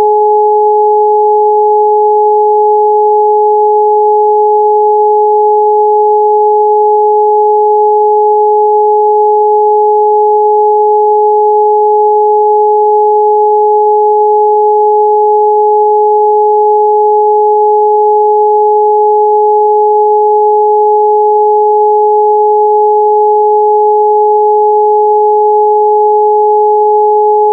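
Steady, unchanging electronic sine tone: a pure hum with a second tone an octave above it, played as a 'Rife frequency' sound-therapy track.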